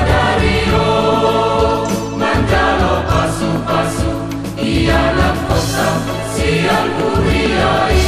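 Church choir singing a Batak wedding song with instrumental accompaniment and sustained bass notes.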